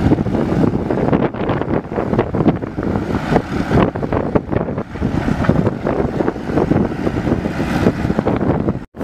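Mini excavator's diesel engine running under working load, a continuous rough rumble with irregular surges, with wind buffeting the microphone. The sound cuts out abruptly for an instant near the end.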